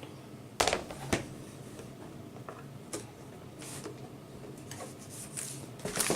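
Laptop LCD panel and plastic parts being handled: two sharp knocks about a second in, then a few faint clicks and rustles.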